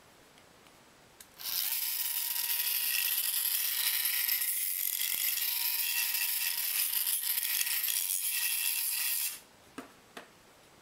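Small cordless rotary tool with a blue abrasive brush spinning against the end of a 3D-printed plastic tube, a steady hiss with a faint motor whine. It starts about a second and a half in and stops about a second before the end, followed by two short clicks.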